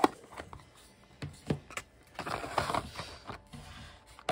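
Stiff plastic model-car packaging being handled and pried apart: a sharp click at the start, a few more clicks about a second in, a scraping rustle in the middle and another click near the end. A clear plastic shell is being slid off and a black plastic tray worked loose to free a diecast car.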